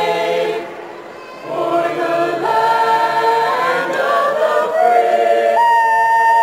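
A high school madrigal choir singing a cappella. A held chord breaks off about half a second in, the voices drop away for about a second, then come back in with moving lines and settle into a long held chord near the end.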